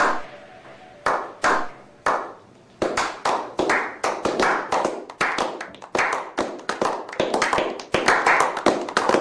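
A small group of people clapping: a few single slow claps at first, then picking up into quick, steady clapping from about three seconds in.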